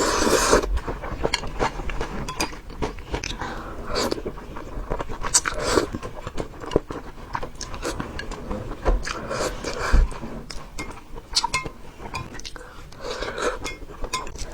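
Close-up eating sounds: biting and chewing, with many short clicks of utensils against a dish.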